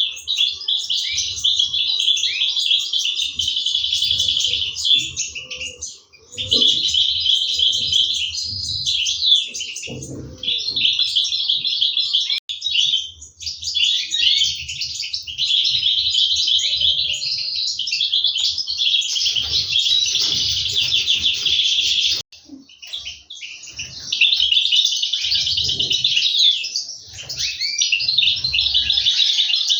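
European goldfinches chirping in dense, rapid, high twitters that run almost without pause, breaking off briefly three times; this is the sound of chicks begging as they are fed.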